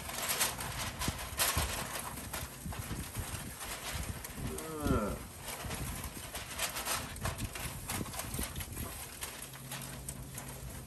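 Aluminium foil crinkling and rustling in irregular crackles as it is handled and laid over ribs on a smoker grate. About four seconds in comes one drawn-out call, about a second long, that rises and then falls in pitch.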